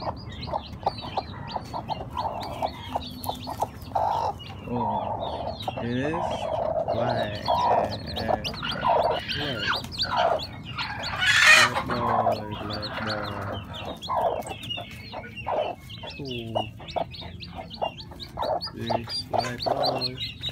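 Broody black hen clucking in a rapid run of short calls, with newly hatched chicks peeping. About halfway through comes one brief harsh burst, the loudest sound.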